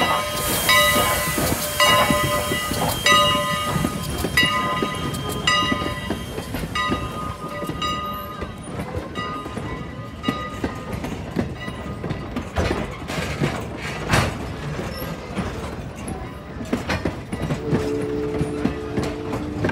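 Passenger coaches of a steam-hauled train rolling slowly past, wheels clicking and knocking over the rail joints. For the first several seconds a ringing of several tones repeats about once a second and fades away, and a steady chord of tones starts near the end.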